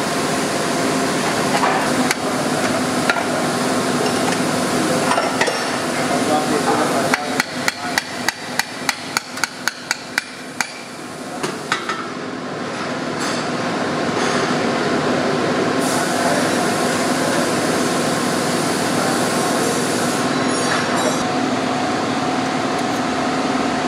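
A hammer striking metal in a quick even run of about a dozen taps, some three a second, in the middle, with a few single knocks before it. A steady workshop hum runs underneath.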